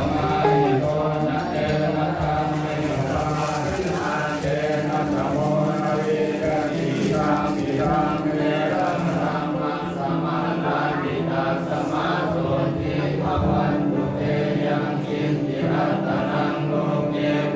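A group of voices chanting together in a steady, droning unison.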